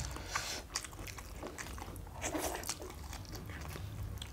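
Close-up eating sounds of two people chewing mutton curry and rice: a run of small wet clicks, lip smacks and chewing noises. A short muffled vocal sound comes about two seconds in.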